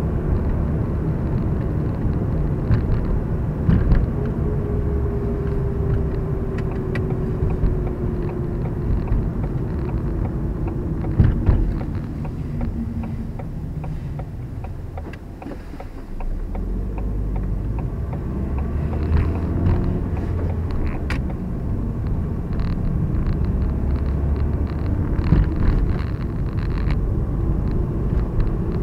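Road and engine noise of a moving car heard from inside the cabin: a steady low rumble that dips for a couple of seconds about halfway through, then picks up again.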